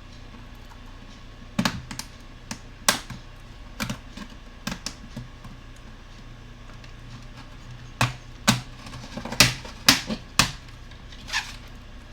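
Irregular sharp plastic clicks and snaps as the laptop's keyboard is pried up out of its retaining latches, bunched in two spells.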